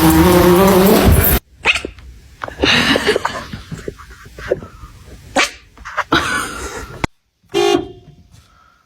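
A cat's long, loud yowl breaks off about a second and a half in. It is followed by a string of short, separate dog barks and yelps, the last just before the end.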